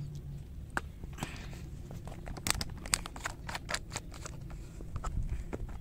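Handling noise from the camera being set up and steadied: scattered small clicks and knocks, several close together a couple of seconds in, over a low steady hum.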